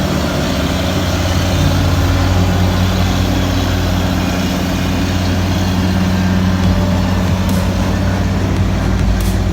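A heavy vehicle engine running steadily close by, a loud low hum over a wash of street noise.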